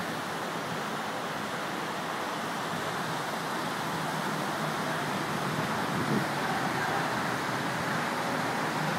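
Steady roar of freeway traffic, an even rushing noise that slowly grows a little louder.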